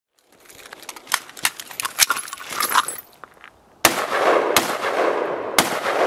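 Gunfire: a rapid, irregular string of quieter sharp cracks for the first few seconds, then three louder single shots about a second apart, each trailing off in echo.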